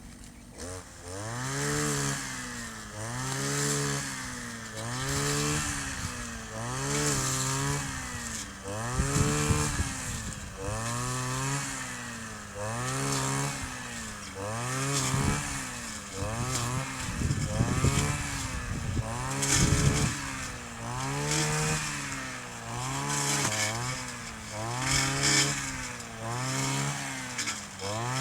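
Kioritz 260 two-stroke brush cutter engine running hard and revving up and down in a steady rhythm, about once every second and a half.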